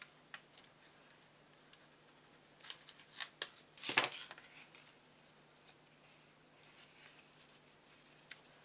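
Faint handling noises of small paper pieces: a few short clicks and rustles as gold foil leaf cut-outs and foam adhesive dots are picked up and pressed onto a card, loudest about four seconds in. A faint steady low hum runs underneath.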